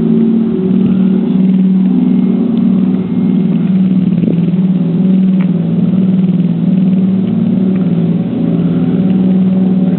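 A loud, steady low drone whose pitch wobbles back and forth between two close notes about once a second, like a machine or motor running continuously.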